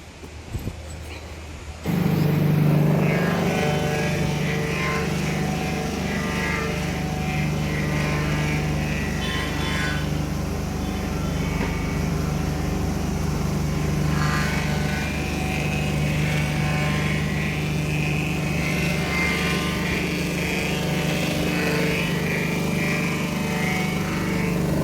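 A steady mechanical drone, like a motor or machine running, starts abruptly about two seconds in and holds an even pitch. A couple of faint clicks come before it.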